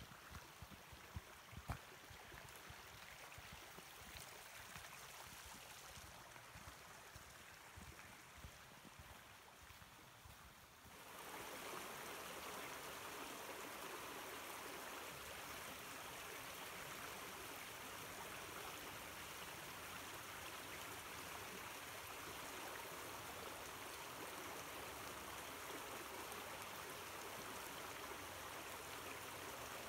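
Shallow rocky creek flowing and babbling steadily. It comes in suddenly about eleven seconds in; before that there is only a faint low rumble with a few light taps.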